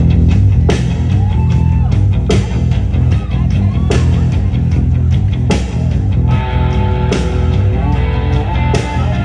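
Live rock band playing an instrumental passage: electric guitars and bass over a drum kit, with a heavy accent hit about every one and a half seconds and guitar lines coming in over the top in the second half.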